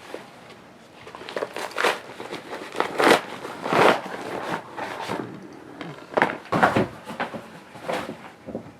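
A mail package being opened by hand: a run of short rustles, crinkles and tearing of its packaging.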